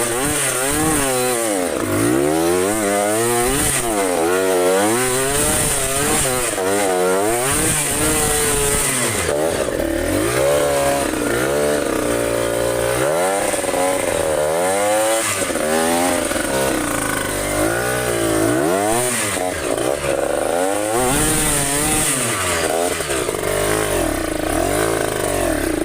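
Trail motorcycle engine revving up and down over and over, its pitch rising and falling every second or two, as the bike is ridden on a rough track.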